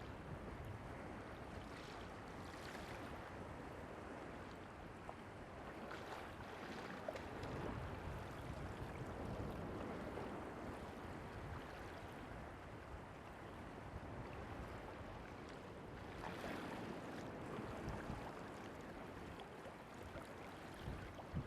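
Waves washing onto a beach: a steady rushing noise that swells now and then.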